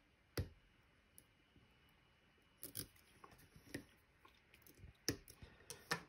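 Sharp metallic clicks of a lock pick and tension wrench working the pin stacks of a Medeco M3 lock: about five separate clicks, the loudest about half a second in.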